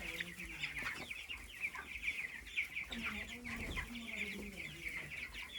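A flock of broiler chickens cheeping and clucking continuously, many overlapping high chirps.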